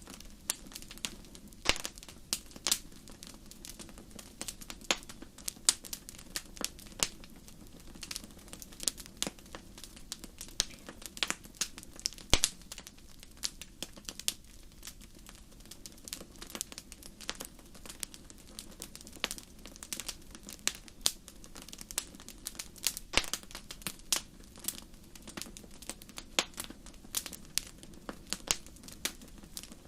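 Wood fire crackling in a fireplace: irregular sharp pops and snaps, several a second, over a steady low rumble of the burning logs.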